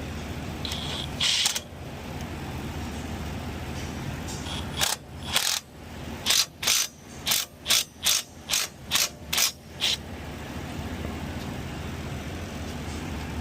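Hand ratchet wrench clicking as a bolt is turned in: a short burst about a second in, then about a dozen quick strokes, roughly two a second, that stop near the ten-second mark.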